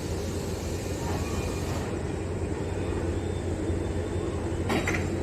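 Steady low rumble, with a short louder rush of noise near the end.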